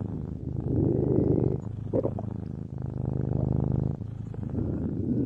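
Stomach growling: low, rattling rumbles in several long stretches, broken briefly about two seconds in and again near four seconds.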